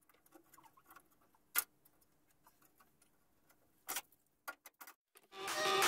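A few sharp, separate clicks in near quiet: one about a second and a half in, a pair near four seconds and a couple of smaller ones after. Electronic music fades in near the end.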